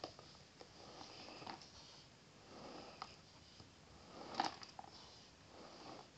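Faint handling noise: soft rustling with a few scattered light clicks, one sharper click a little past halfway.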